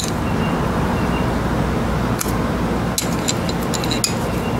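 Metal hand tools clinking: a socket wrench and loose sockets being picked up and handled, a handful of light, sharp clinks from about two seconds in. A steady low background hum runs underneath.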